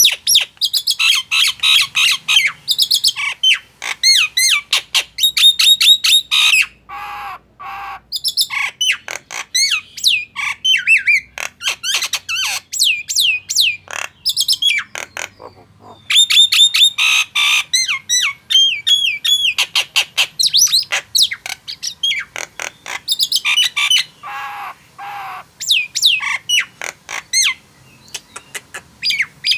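A Jalak Nias starling singing: rapid strings of sharp, falling whistled notes, with a few lower harsh calls in between and brief pauses.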